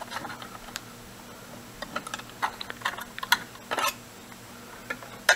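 Irregular light metallic clicks and taps from a small steel mounting bracket and screw being handled against a radio transceiver's metal case.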